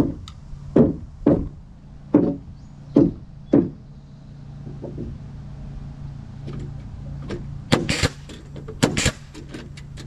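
Hammer blows on wooden framing lumber: about six strikes in the first four seconds, then a few quick knocks near the end, over a steady low hum.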